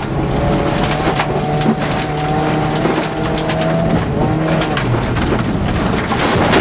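VW Golf Mk2 rally car heard from inside the cabin at speed on gravel: the engine runs hard at high steady revs while loose stones rattle against the underside. The engine note drops about five seconds in.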